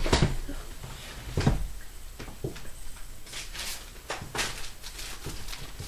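Handling noise from tarot cards and objects being moved on a table: scattered soft knocks and rustles, with a few louder taps.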